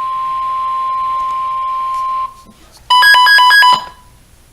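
Weather radio broadcast dead air: hiss under a steady high electronic tone, which cuts off about two seconds in. About three seconds in comes a short, loud electronic warble of rapidly alternating beeps lasting under a second.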